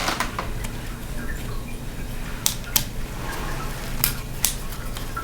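Small sharp clicks and taps from laptop internal parts being handled, a cooling fan and a cable being fitted into place. They come in two quick pairs in the second half, over a low steady hum.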